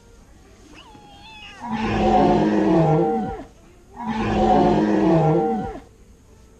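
Toy cat making two angry cat yowls in a row, each about a second and a half long and nearly identical, after a faint short mew.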